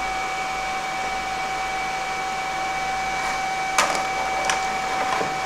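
CNC router's high-speed spindle running steadily without cutting, a constant high whine over a hiss. A couple of sharp clicks near the end.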